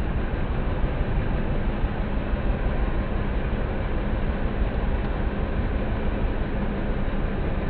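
Suzuki GD 110s single-cylinder four-stroke motorcycle engine running steadily with a mechanical clatter, a noise put down to timing chain vibration.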